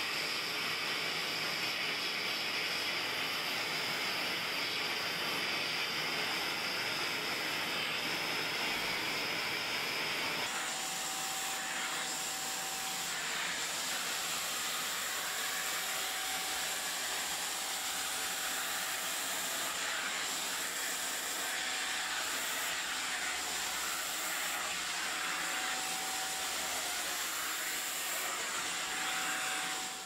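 Karcher WD 3 wet-and-dry vacuum cleaner running steadily, its suction making a constant rushing hiss. About ten seconds in the airflow sound changes abruptly to a higher whistle as the nozzle changes, then runs on unchanged and cuts off at the end.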